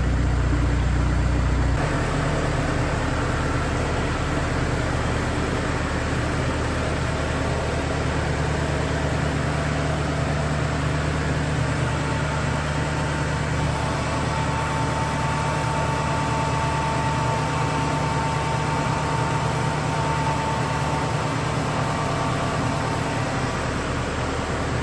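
Tractor engine running steadily at idle, used to lift an engine's crankshaft out with straps; its note shifts about two seconds in.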